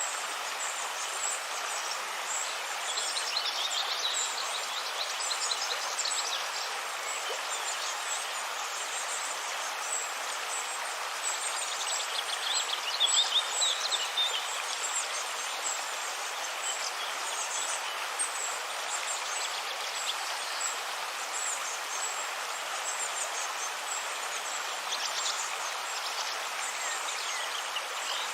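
River water flowing steadily, with birds chirping over it; the loudest run of chirps comes about halfway through.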